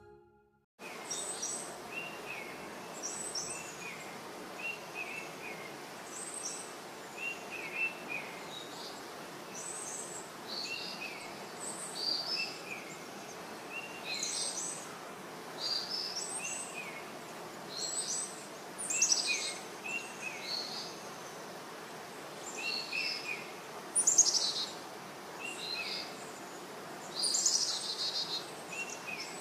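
Wild birds calling over a steady outdoor background hiss: short falling chirps repeated in twos and threes, with higher, sharper calls between them, the loudest of these coming in the second half.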